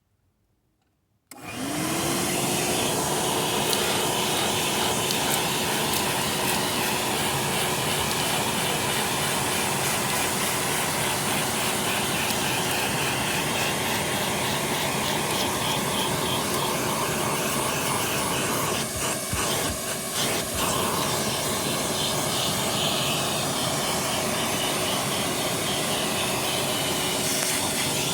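A vacuum cleaner switches on about a second in, its motor whine rising and settling into a steady run. It then keeps sucking, with grit rattling up through the hose.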